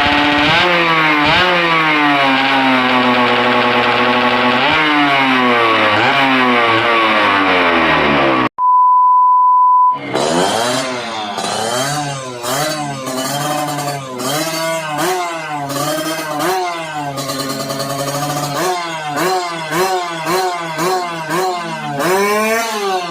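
Yamaha TZM 150 two-stroke single-cylinder engine running under load, its pitch climbing and then dropping back through gear changes. About eight seconds in it gives way to a steady beep lasting about a second and a half. The engine then returns as a string of short revs, each rising and falling, about one a second.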